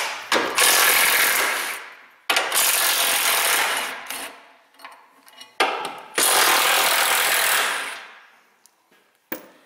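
Cordless 3/8-inch impact wrench with a 13 mm deep impact socket hammering out bolts in three bursts of one and a half to two seconds each. Each burst trails off as the bolt comes loose.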